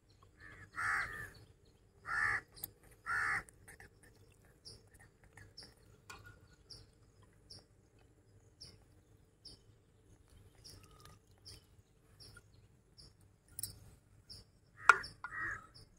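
Crow cawing three times in the first few seconds and again near the end, harsh calls with a gap of about a second between them. A steady run of short high chirps sounds in between, and a sharp click comes just before the last caw.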